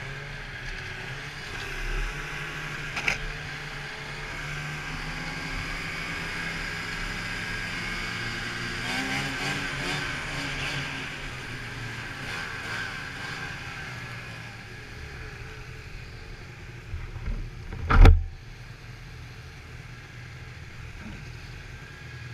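Snowmobile engines running steadily under way, heard from the rider's helmet, then easing off toward the end as the sleds slow to a stop. A single loud thump comes about three-quarters of the way through.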